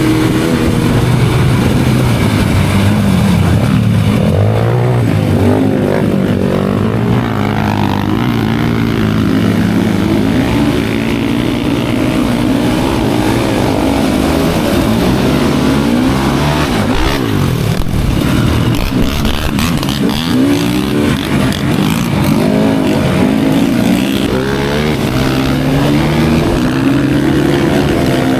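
Enduro motorcycle engine running loudly, its revs rising and falling constantly as the throttle changes.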